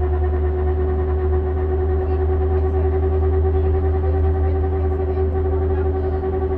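A Volvo vehicle's radiator cooling fan and engine running steadily: a constant low hum with a steady mid-pitched whine above it.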